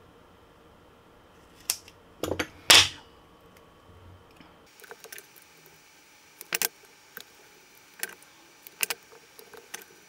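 Scissors cutting strips from a roll of double-sided tape: a string of sharp snips and clicks, the loudest about three seconds in, then single snips spaced a second or two apart.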